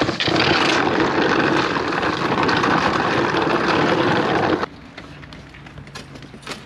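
Shop vacuum running steadily, sucking up dirt and debris, then cutting off suddenly about two-thirds of the way through, leaving a faint hum and a few light knocks.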